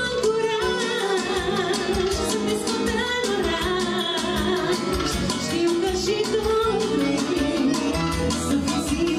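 A woman singing a Romanian party song (muzică de petrecere) with a live band of violin, accordion and keyboards over a steady, even beat.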